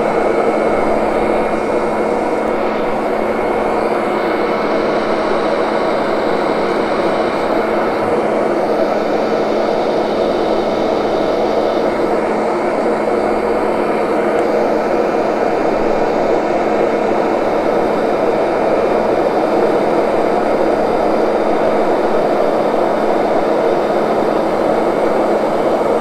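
Kirby upright vacuum running steadily as it is pushed over carpet to vacuum and groom it, a constant motor hum and whine over the rush of air.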